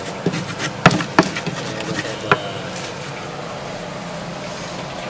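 Three sharp knocks of a stone pestle against a clay sambal mortar in the first two and a half seconds, then a steady buzzing hum.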